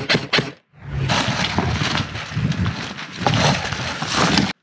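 A few quick sharp clicks, then rough rushing noise with low swells from wind and movement on an action camera's microphone, which cuts off suddenly near the end.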